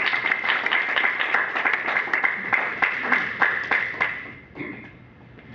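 Audience applauding in a hall, dense clapping that dies away about four seconds in.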